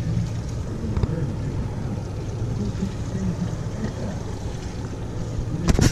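Twin Mercury four-stroke outboard motors idling with a steady low rumble, with wind on the microphone. Near the end come a few loud bumps on the microphone.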